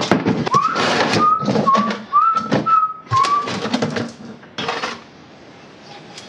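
A person whistling a short tune of about six notes for two and a half seconds, among sharp clinks and knocks of metal engine parts being handled and fitted.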